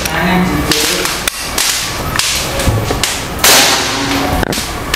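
Predator Mahameru PCP air rifle firing one sharp shot about three and a half seconds in, the loudest sound here; before it, handling rustle and a click as the rifle is readied.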